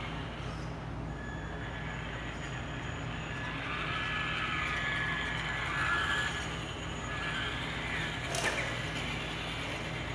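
Radio-controlled Traxxas Rustler stadium truck driving laps, its motor and gears whining, swelling to a peak as it passes close about six seconds in. A single sharp knock comes near the end, over a steady low hum.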